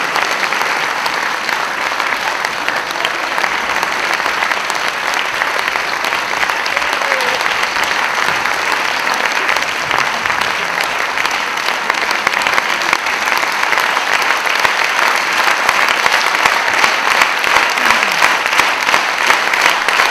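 Theatre audience applauding steadily, growing a little louder toward the end.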